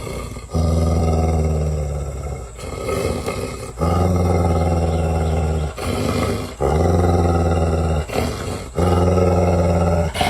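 Dog growling in four long, low, steady growls of about two seconds each, with short breaks between them.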